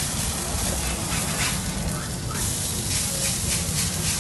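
Egg and bacon frying on a hot flat-top griddle: a steady sizzling hiss with scattered faint crackles.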